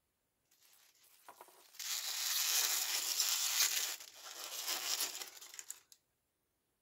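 Tissue paper crinkling as it is unwrapped from a small plastic toy ring. The crinkling starts faintly, turns loud about two seconds in, dips briefly about four seconds in and stops about a second before the end.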